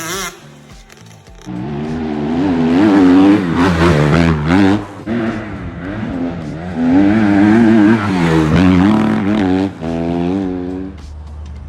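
2005 Kawasaki KX125's two-stroke single-cylinder engine being ridden hard, its pitch climbing and dropping again and again through revs and gear changes. It comes in about a second and a half in and fades near the end.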